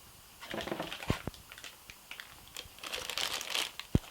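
Packaging crinkling and rustling as accessories are handled and taken out of a box, in two spells, the second longer and denser, with a few light knocks.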